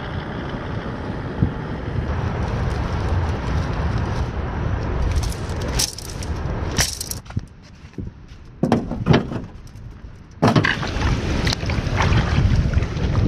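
Wind buffeting the microphone, a steady low rumbling haze, broken in the middle by a quieter spell with several sharp clicks and knocks.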